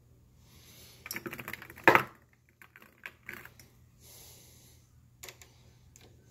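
Brass rifle cartridges clicking and clinking as they are handled and set into and taken from a plastic ammo box: a quick run of small clicks a second or so in, the sharpest near two seconds, then a few lighter scattered clicks.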